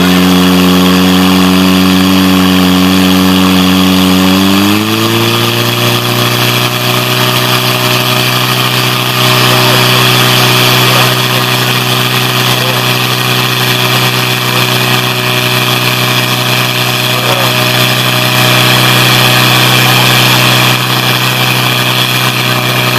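Portable fire pump's engine running hard, its pitch stepping up about five seconds in and then holding steady, while it pumps water out to the attack hoses.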